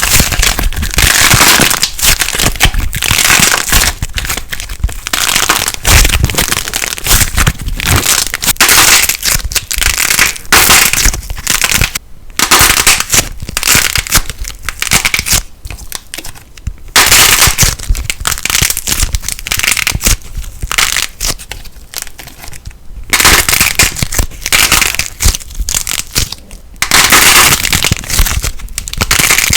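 Crackling light-plasticine slime being squeezed and pressed by hand, giving dense runs of sharp crackles and pops with a few brief pauses between squeezes.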